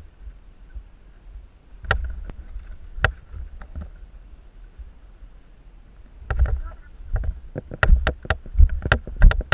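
Rumble and knocks on an action camera's microphone. Two sharp knocks come early on, then from about six seconds in a rapid, irregular run of heavy thumps, two to three a second, becoming the loudest part.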